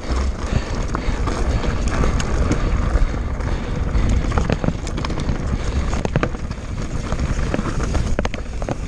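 Mountain bike descending a rough, rocky trail: tyres grinding over loose rock and dirt, with frequent sharp knocks and rattles from the bike over the chunky ground and wind rumble on the microphone.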